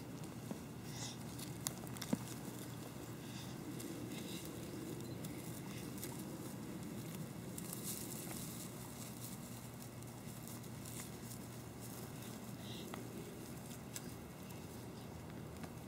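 Faint rustling and scratching in dry grass and sandy ground from gopher tortoises crawling, with a couple of sharper clicks about two seconds in, over a low steady outdoor rumble.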